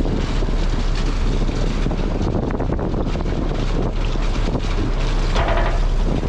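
Wind buffeting the microphone over the steady low rumble of the fire truck's engine running.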